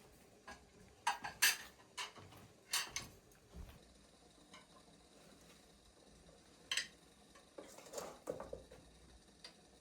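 Dishes and cutlery clinking and knocking as they are handled, in a few scattered sharp strikes with quiet between them.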